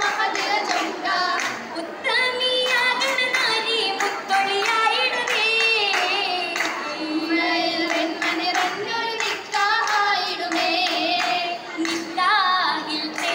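Oppana: girls' voices singing a Mappila song in unison, with sharp rhythmic hand claps.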